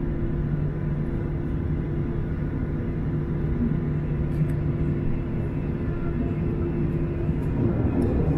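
Boeing 737-800 cabin noise: the CFM56-7B engines and airflow make a steady low rumble with a constant hum running through it.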